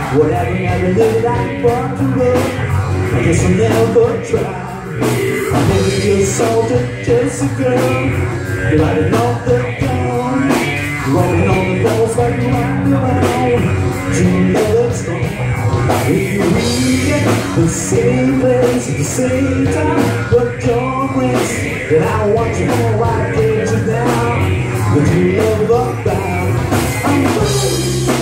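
Live rock band playing: electric guitar, bass guitar and drums, with a man singing over them.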